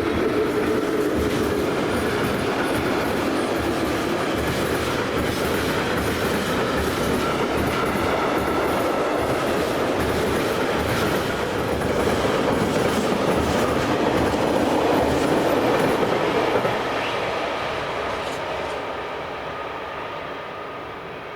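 A train passing close by on the running line, its wheels clacking over rail joints with a faint wheel squeal. It stays loud for about sixteen seconds, then fades away.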